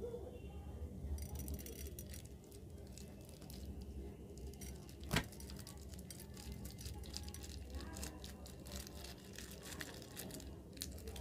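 Clear plastic piping bag crinkling as it is squeezed and shaken, with many small beads clicking and pattering out of it into a glass dish; one sharper click about five seconds in.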